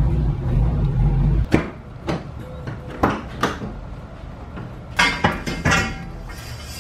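A low engine rumble that stops abruptly after about a second and a half. Then the rear barn doors of a Chevy Suburban are unlatched and swung open, with a series of sharp latch clicks and clunks and a quick cluster of metallic clacks with a slight ring about five seconds in.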